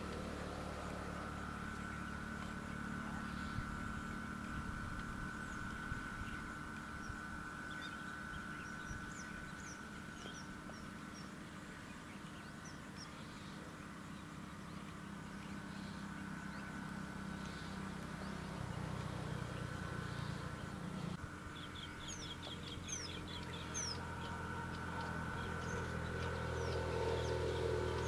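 Faint outdoor ambience: a steady low rumble and a thin steady tone, with scattered short high chirps of small birds. A quick trill of calls comes about three-quarters of the way through, and a louder lower call near the end.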